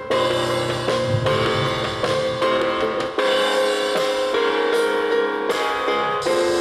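Background music with a steady drum beat and pitched instrumental notes.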